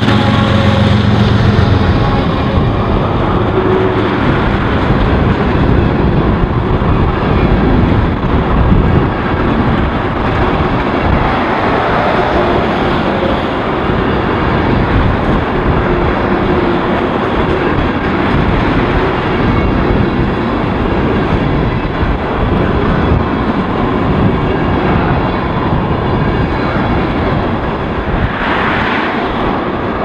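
A diesel locomotive on a freight train passing close by at speed, its engine hum fading within the first couple of seconds. Then the steady rumble of a long string of tank cars rolling past on the rails.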